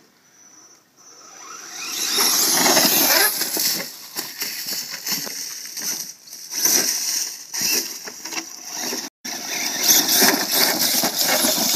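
RC monster truck's Tekin Pro-4 4000kv brushless motor whining as it is throttled in bursts, with a rising whine about two seconds in, and tyres scrabbling through dirt, gravel and leaves. The sound cuts out for an instant about nine seconds in.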